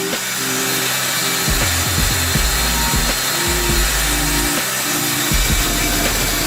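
A power tool running, cutting or working wood, under background music with held notes.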